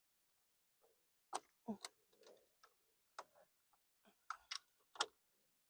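Irregular sharp clicks and taps of plastic: a motorcycle's plastic fender push pins and trim being worked loose by hand.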